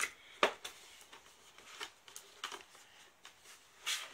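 Cardboard and clear plastic window box being opened and handled by hand: a few short clicks and rustles of flaps and plastic. The sharpest come right at the start, about half a second in, and just before the end.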